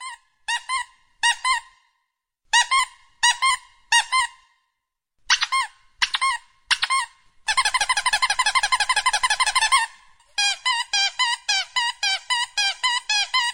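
Novelty ringtone of high squeaky chirps. They come in groups of two and three, turn into a fast continuous trill about halfway through, then go on as a quick run of chirps.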